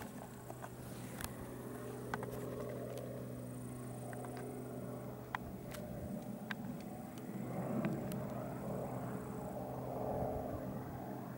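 Light helicopter flying past overhead: a steady drone of engine and rotor with a low hum.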